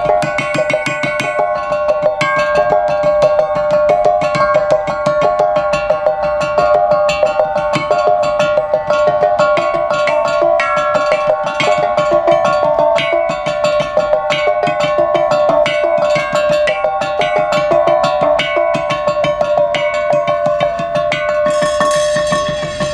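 Tuned grey percussion bars struck with mallets by two players: a fast, continuous stream of pitched notes that ring on over each other, with one tone holding steadily beneath the pattern.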